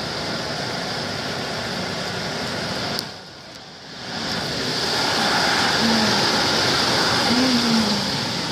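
Heavy rain falling in a steady hiss. A click about three seconds in is followed by a brief drop in level, and the rain comes back louder about two seconds later.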